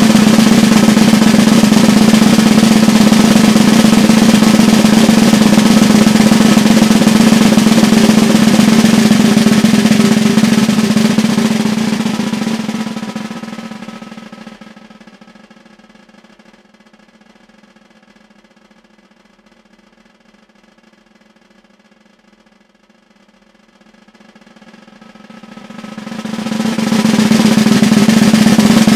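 Concert snare drum roll played with wooden sticks, with the drum's ring sounding underneath. The roll is loud, dies away to very soft about twelve seconds in, stays soft for several seconds, then swells back to loud near the end.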